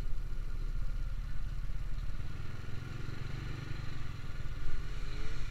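Motorcycle engines running on the road, among them a two-stroke motorcycle approaching; an engine note rises in pitch near the end.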